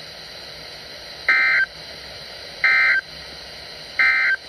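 Emergency Alert System end-of-message code: three short, identical bursts of digital data tones, evenly spaced about a second and a third apart, over steady radio hiss. This signals that the warning broadcast has ended.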